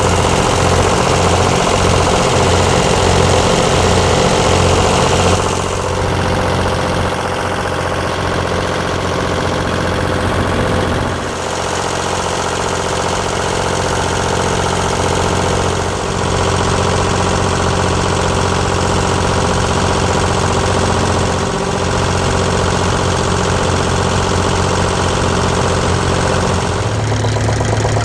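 A water-taxi boat's engine running steadily with a low, pulsing throb. Its note and loudness shift a few times along the way.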